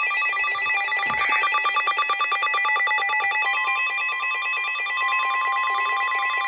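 Weather radio alert tones: several overlapping electronic tones pulsing in a fast repeating pattern. About three and a half seconds in, a steady single-pitched alarm tone is added and grows louder. It is the warning alarm that precedes a National Weather Service severe thunderstorm warning broadcast.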